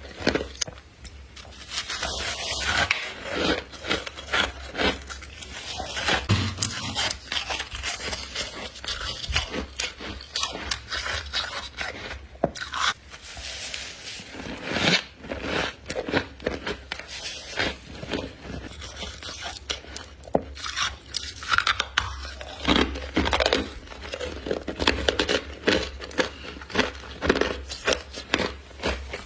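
Deep-freezer frost ice crystals being bitten and chewed close to the microphone: many crisp crunches in quick, irregular succession, with some scraping.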